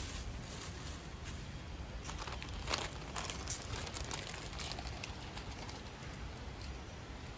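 Faint outdoor background noise with a few soft clicks and rustles about three seconds in.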